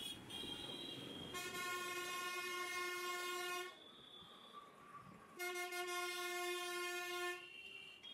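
Two long blasts of a loud single-pitched air horn, each about two seconds, about two seconds apart.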